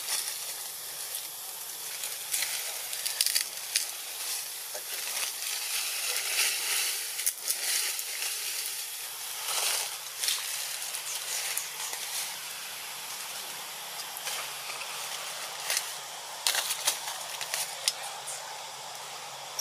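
Steady high hiss of outdoor ambience, with scattered short crackles and rustles every few seconds.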